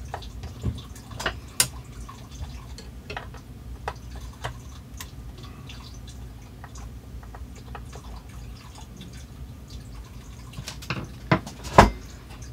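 Screwdriver backing out the small screws of a turntable's tonearm lift mechanism: scattered light metal clicks and ticks, with two louder clicks near the end.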